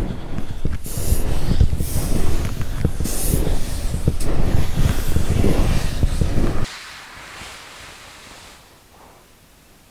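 Wind buffeting the microphone: a loud, gusty rumble that cuts off abruptly about seven seconds in, leaving a faint hiss.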